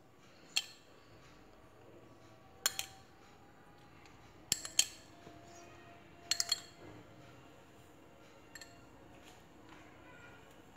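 A spoon clinking lightly against a cup as saffron water is spooned over rice: a handful of separate clinks a second or two apart, some in quick pairs.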